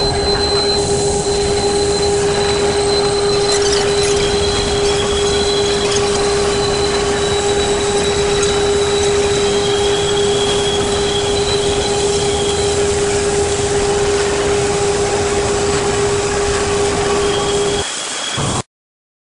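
Steady machine-shop machinery noise: a constant mid-pitched hum under a broad roar, with faint high whines coming and going. The hum stops shortly before the sound cuts off abruptly near the end.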